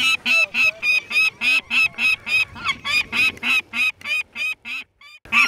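Peregrine falcon giving a rapid series of harsh calls, about five a second, which break off briefly near the end and then start again.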